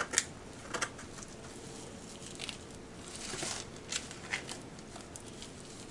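Hands rubbing dry seasoning into raw pork ribs on a foam meat tray: faint rustling and handling noise with scattered light taps and crackles, the sharpest just after the start.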